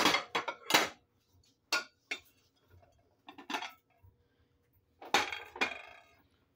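Ceramic dinner plates clinking as they are set down and layered on a glass-topped table: a series of sharp clinks with a short ring, the loudest at the start and about five seconds in.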